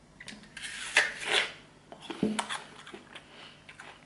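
A person biting into a crisp apple and chewing it with crunching, close to the microphone, the loudest crunch about a second in.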